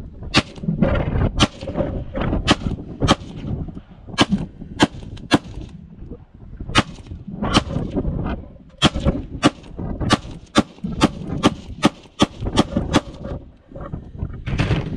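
A 5.7x28mm pistol fired in a steady string of about twenty shots, a little under two a second, emptying the magazine. The firing stops about thirteen seconds in.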